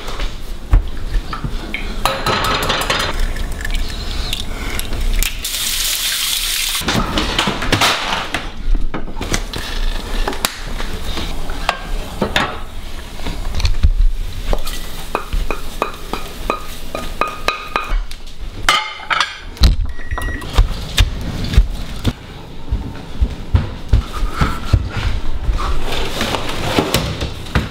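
Kitchen clatter: a metal pot and utensils knocking and scraping as scrambled eggs are cooked and served, with drawer and cupboard knocks and a brief hiss about six seconds in.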